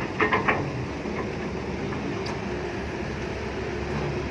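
Six-wheel truck engine running with a steady low rumble, with a brief burst of voices right at the start.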